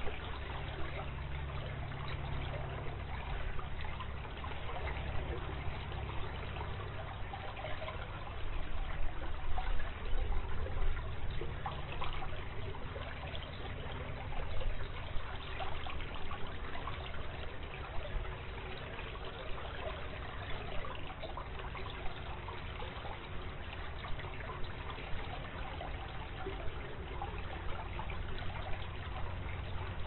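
Steady trickling water, louder for a few seconds around eight to eleven seconds in and again near fifteen seconds.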